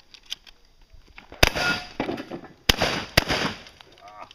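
Three shotgun shots: the first about one and a half seconds in, then two more close together, about half a second apart, each followed by a short trailing echo.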